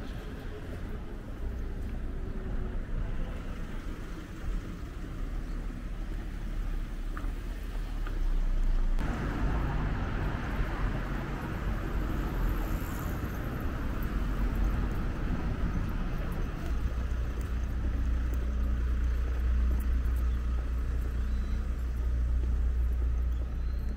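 Street traffic noise: a steady rumble of cars on the road alongside, growing louder about nine seconds in.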